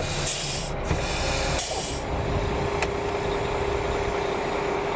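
Coach bus moving off: two loud hisses of compressed air in the first two seconds, typical of the air brakes being released, then the bus running with a steady drone.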